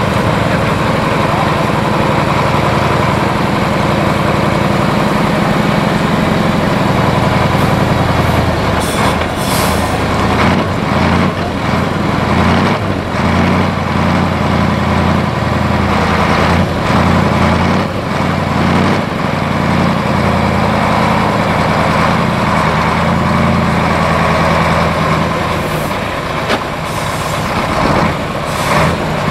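Engine of a six-wheel-drive trial truck running under load as it crawls over rocky ground, its note changing from about seven seconds in. Knocks and clatter come from the chassis, and short hisses of air are heard around nine seconds in and again near the end.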